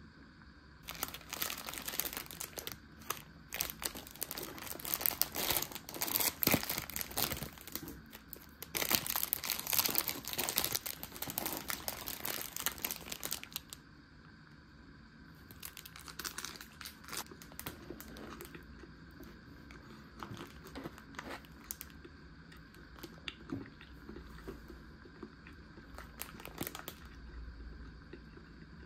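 Plastic sandwich wrapper being torn open and crinkled. Dense crinkling runs for the first half, then lighter, scattered crinkles and clicks as the packaging is handled.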